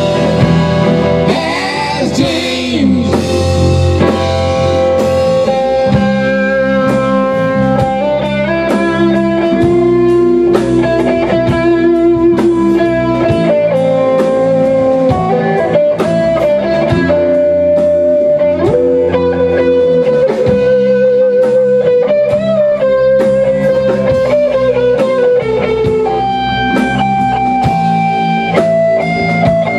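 Rock band playing live: an electric guitar plays a lead line of long held notes with bends and vibrato over bass guitar and drums.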